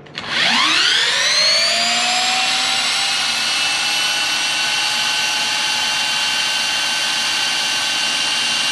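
A 12-volt cordless drill spins the shaft of a Hyundai Ioniq's electric drive motor, turning it as a generator. It runs up with a whine that rises in pitch over the first two seconds or so, then holds a steady high whine.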